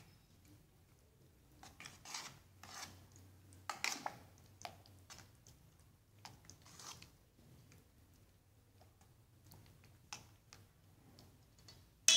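Metal spoon stirring a wet catsup-and-squid mixture in a stainless steel bowl: faint, irregular scraping and clicking against the bowl. At the very end comes a sharp metal clank that rings briefly.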